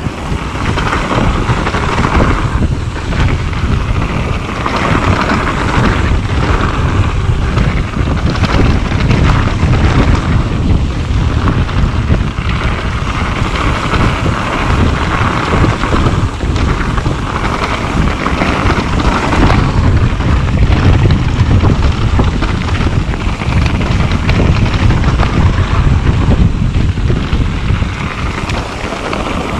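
Wind rushing over an action camera's microphone while a mountain bike rolls down a dirt singletrack, its tyres rumbling over the ground in a steady rush.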